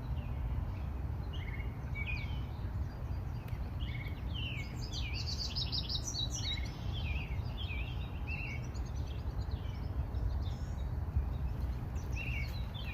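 Several songbirds chirping in short, quick notes, busiest in the middle, over a steady low rumble.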